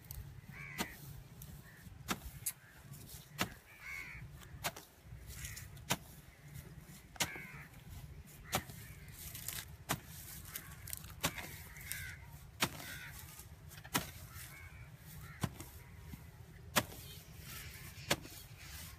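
Long-handled hoe chopping into dry, dusty soil, a sharp strike about every second and a half in a steady rhythm.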